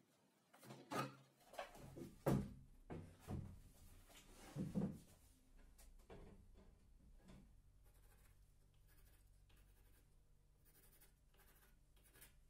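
Several sharp knocks and clatters as a handheld circular saw is set down and shifted on a wooden tabletop, then faint pencil scratching as its base plate is marked round.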